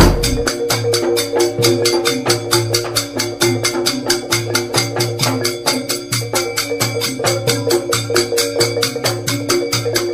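Music with a fast, even percussion beat over steady sustained tones, with a loud thump right at the start.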